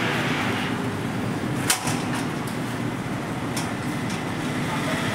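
Steady background rumble of passing road traffic, with one sharp click about a third of the way in and a couple of faint ticks later.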